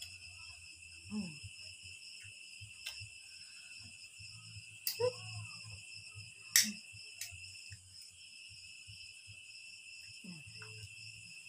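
Steady, unbroken chirring of crickets. Over it come a few sharp clicks from eating by hand at the table, the loudest a little past halfway, and a few short murmurs.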